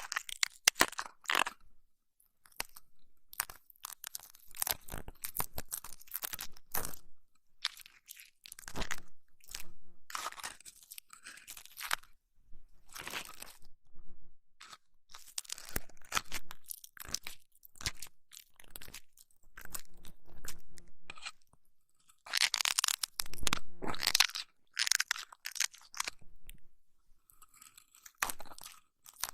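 Close-up ASMR ear massage sounds on a microphone: irregular crunchy crackling and rubbing in short clusters, with brief quiet gaps between them.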